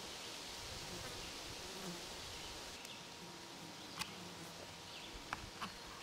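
American black bear making low, soft moans, with two sharp clacks about four seconds in and a second later, over a steady buzz of insects. These sounds are the signs of a nervous bear.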